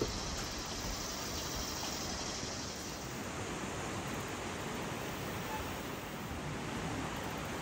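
Steady rushing of creek water flowing over rocks, an even hiss.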